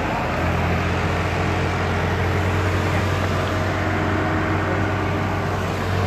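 Small fishing boat's motor running steadily under way, a low drone that grows stronger about half a second in, with the rush of wind and water over it.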